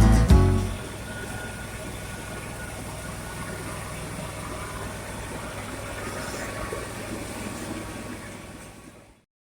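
An engine running steadily at idle, a low even hum, after a burst of music at the very start; it fades out near the end.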